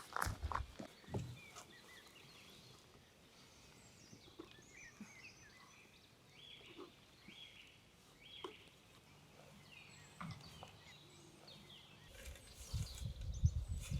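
Faint outdoor ambience with scattered short bird calls. A few sharp steps or knocks sound in the first second and a half, and louder low thumps and rustling start near the end.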